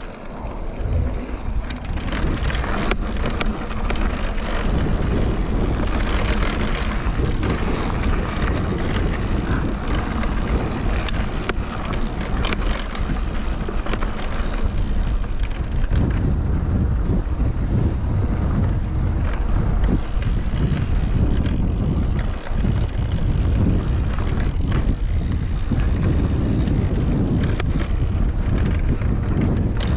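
Wind buffeting the camera microphone while a mountain bike rolls along the trail, with tyre noise and scattered sharp clicks and rattles from the bike.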